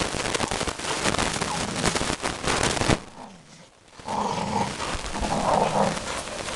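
American bulldogs growling as they wrestle in a play fight. The first half is a dense crackling noise; after a brief lull a little past the middle, the growls come through clearly.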